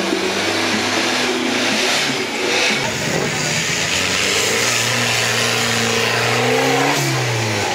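Off-road 4x4 engines revving under load: one climbing a dirt slope, then, after a cut about three seconds in, a small 4x4 pushing through deep mud, its engine pitch rising slowly and dropping sharply near the end.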